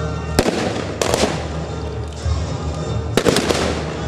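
Scattered gunfire from reenactors' rifles firing blanks, about six sharp shots: one near the start, two about a second in, and a quick cluster of three around three seconds in. Music plays underneath.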